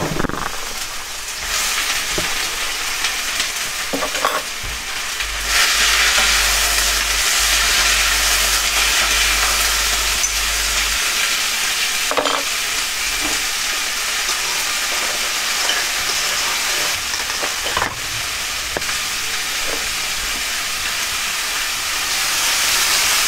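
Food sizzling and frying in a hot frying pan on a gas hob, the sizzle growing fuller about five seconds in. It is stirred, with a few knocks of a utensil against the pan.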